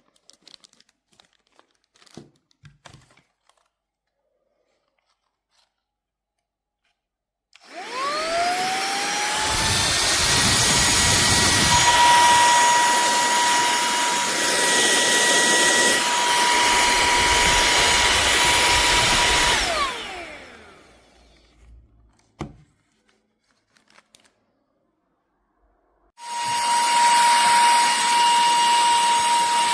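Cordless handheld vacuum cleaner switched on, its motor whining up to speed and running with a steady high whine for about twelve seconds. It is then switched off and spins down with a falling whine. After a short pause with a click, it is switched on again a few seconds before the end.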